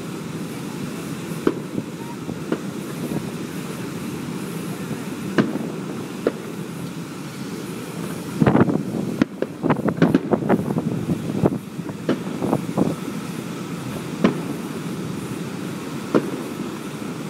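Aerial fireworks bursting over a steady rumbling background: scattered single bangs, then a rapid flurry of bangs about halfway through, then a few more spaced-out bangs.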